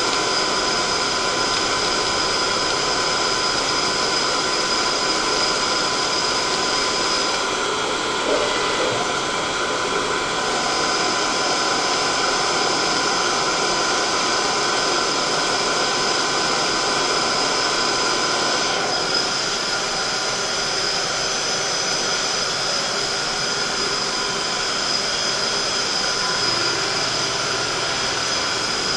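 CNC machine tool running steadily, a continuous mechanical noise with a high steady whine. The whine drops out for a few seconds about a third of the way in, then returns.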